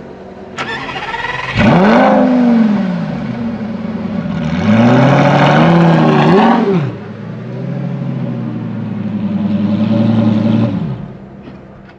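Lamborghini Gallardo Superleggera's V10 with its catalytic converters removed, revved at a standstill. It idles, is blipped sharply about a second and a half in, held at high revs from about four and a half to seven seconds in, then raised more slowly again before falling back to idle near the end.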